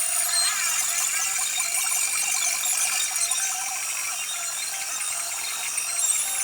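Metal lathe machining a steel shaft: the cutting tool working the turning metal, a steady, high-pitched mechanical sound.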